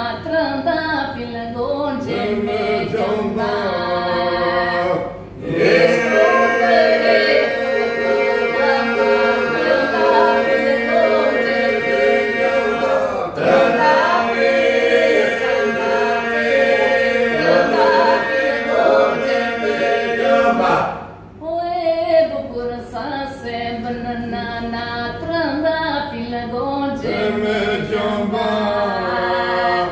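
Albanian polyphonic singing without instruments by a small mixed group: a woman's lead voice (the marrës) carries the melody over the others' steady held drone. The singing comes in long phrases with short breaks about five seconds in and about twenty-one seconds in.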